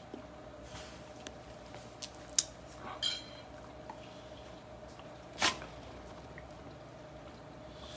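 Two dogs play-wrestling on a carpet, mouthing at each other: scattered soft clicks, taps and wet mouthing sounds, with sharper ones about two and a half seconds in and near five and a half seconds. A faint steady hum sits underneath.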